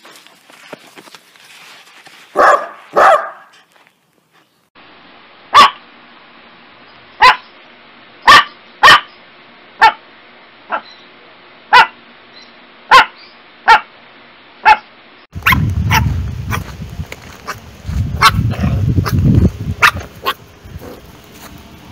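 Dogs barking, three small dogs in turn. A small long-haired terrier gives two barks, then a small dog gives sharp single barks about once a second, then a puppy gives quick little barks with a low rumble of wind on the microphone.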